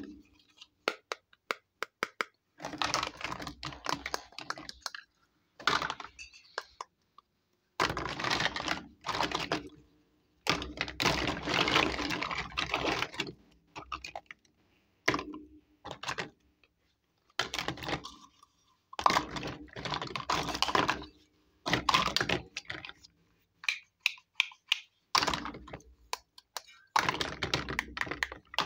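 Small plastic toy cookware clattering and clicking as hands rummage through a pile of miniature kitchen toys, in bursts of a few seconds with short pauses between.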